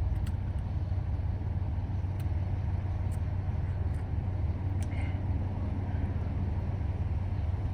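Steady low motor-vehicle rumble, with a few faint ticks.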